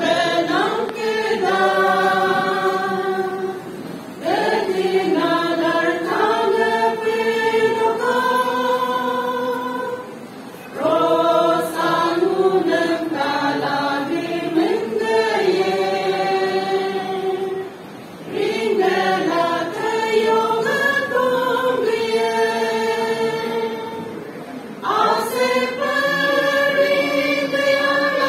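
Mixed church choir of women and men singing together, in sustained phrases of six or seven seconds with short breaks between them.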